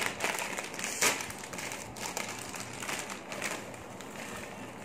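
Crinkling and rustling of a plastic-foil snack bag being handled and opened, loudest about a second in. Near the end the corn puffs are poured out of the bag into a glass bowl.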